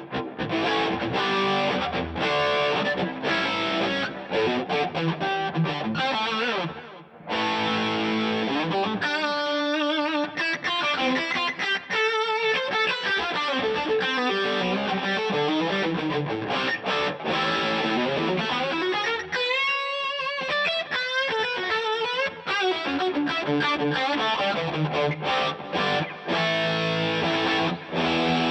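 Distorted electric guitar played through a DVII guitar amp with overdrive, boost and fuzz pedals in front of it. Gritty riffing and lead lines, with wavering bent notes twice.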